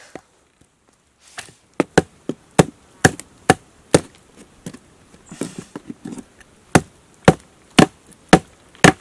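Wooden baton striking the spine of a small fixed-blade knife driven into dry, hard, knotty deadwood, batoning it to split the wood. There is a run of sharp knocks about two a second, a short pause with some rustling and crackling of the wood, then five more knocks.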